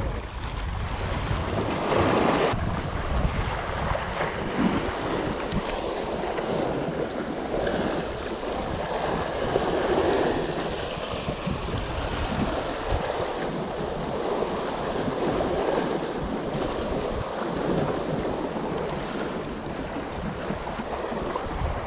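Sea waves washing and breaking among the boulders of a rocky breakwater, swelling louder about two seconds in and again around ten seconds in, with wind buffeting the microphone.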